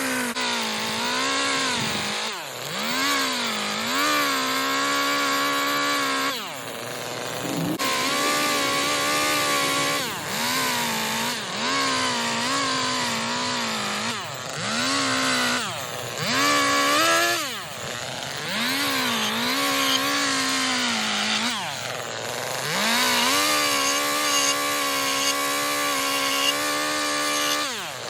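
Chainsaw engine revving through a series of cuts in wood. Its pitch rises, sags as the chain bites, then falls back toward idle about five times.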